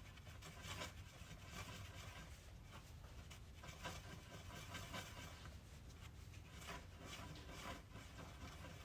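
Faint, scattered soft scrapes and taps of JB Weld epoxy being worked onto a small part by hand, over a low steady hum.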